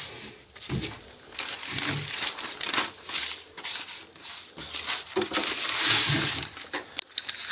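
Polyethylene sleeve film crinkling and rustling as it is pulled off the roll and handled by hand, loudest about six seconds in.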